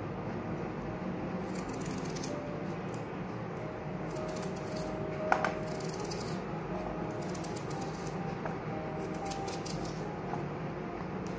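A kitchen knife slicing a peeled raw potato held in the hand, a few short crisp cuts, with one sharp click about five seconds in, over a steady background hiss.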